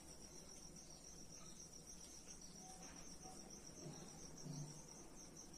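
Near silence apart from a faint, steady, high-pitched pulsing trill of a cricket.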